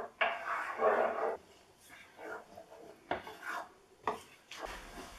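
Wooden spoon scraping and stirring a thick sauce around a non-stick frying pan on a hob: a louder stretch of scraping in the first second or so, then several fainter strokes.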